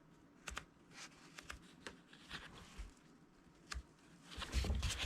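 Faint paper rustling and flicking as the pages of an old book are turned: a string of short, irregular flicks, with a longer rustle near the end.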